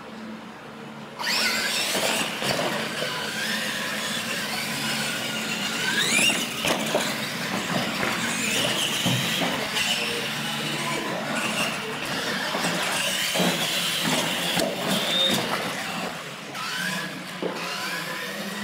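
Electric R/C monster trucks running flat out across a concrete floor. Their motors whine, rising and falling in pitch, over tyre and drivetrain noise, starting suddenly about a second in.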